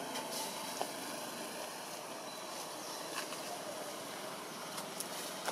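Steady outdoor ambience with faint wavering tones and a few scattered light clicks and ticks.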